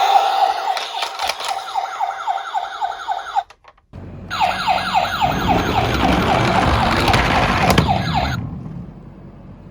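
Toy ambulance's electronic siren in a fast yelp, quick rising sweeps repeating about four times a second. It breaks off about three and a half seconds in, starts again half a second later with a low rumble under it, and fades near the end.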